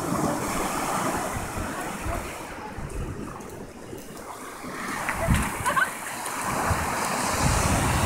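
Ocean surf washing on the shore, easing off about halfway through and building again, with wind rumbling on the microphone.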